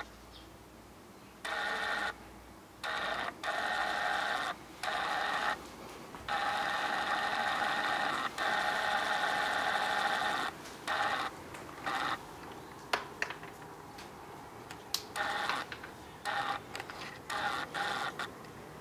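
Camcorder lens motor whirring in repeated bursts as the lens zooms and refocuses, picked up by the built-in microphone. The bursts start and stop abruptly, some brief and some lasting several seconds.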